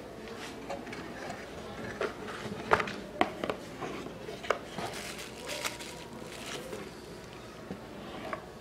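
Handling noise from a compact digital camera being set into its cardboard box and plastic insert tray: a scatter of light knocks and clicks with plastic and cardboard rustling, the loudest knocks a few seconds in.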